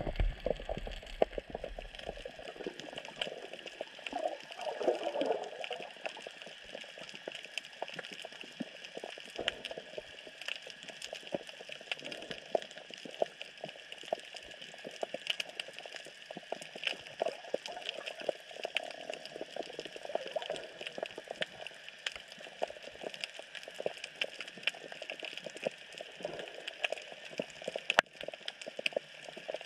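Underwater ambience at the seabed: a steady hiss under a dense, irregular crackle of small clicks and pops, with a brief low swell about four seconds in and one sharper click near the end.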